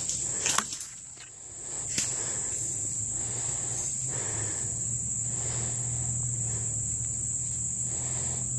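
Steady high-pitched drone of insects in the woods, with a low hum underneath and a few short clicks in the first two seconds.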